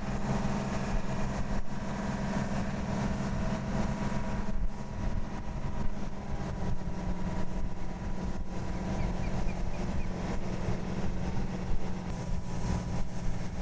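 Engine of a large multi-wheeled transporter running with a steady low hum as it rolls slowly along carrying a Space Shuttle external tank.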